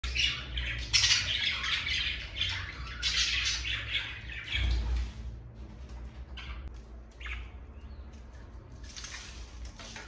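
Budgerigar chattering and squawking in quick, dense bursts for about five seconds, then only a few short single calls.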